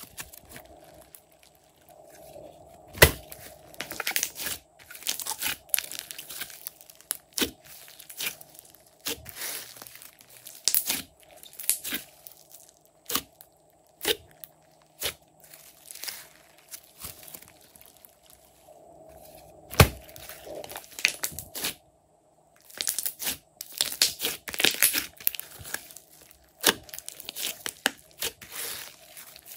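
Glossy slime being squeezed, stretched and folded by hand, with irregular crackling and popping of trapped air and sticky squelches. Two sharper, louder pops stand out, about three seconds in and again about twenty seconds in.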